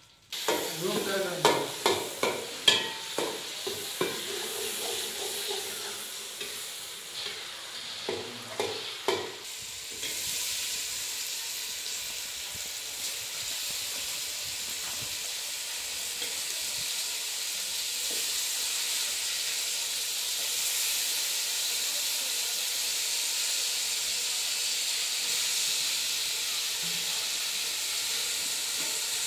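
Fish pieces frying in hot oil in an aluminium pot over a wood fire: a steady sizzle, stirred now and then with a metal spoon. For roughly the first ten seconds there are knocks and clatter of utensils against the pot, before the sizzle takes over.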